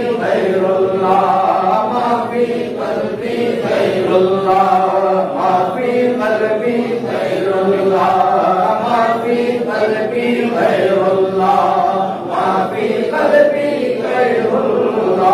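Congregation chanting an Arabic zikr refrain in unison, a steady sung line with no real pauses.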